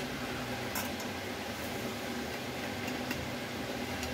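Steady low background hum with a few faint, light clicks and taps as sliced onion and garlic are tipped from a steel plate into a small steel jar.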